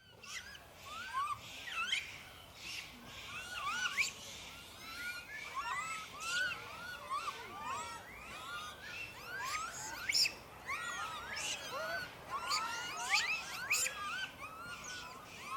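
Many overlapping short, high chirping calls, each rising and falling in pitch, from several animals calling at once throughout.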